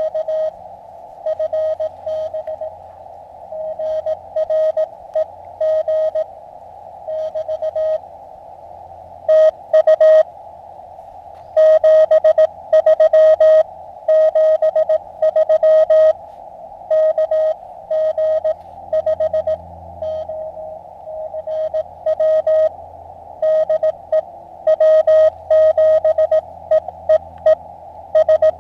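Morse code (CW) from an Elecraft KX2 transceiver: a tone of about 600 Hz keyed in dots and dashes over a narrow band of receiver hiss, during an on-air contact. Loud and fainter runs of keying alternate.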